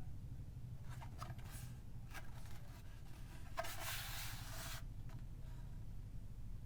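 Collectible-figure packaging being handled: a few light clicks and taps, then about a second of rubbing, sliding noise, as of packaging parts scraping against each other. A steady low hum runs underneath.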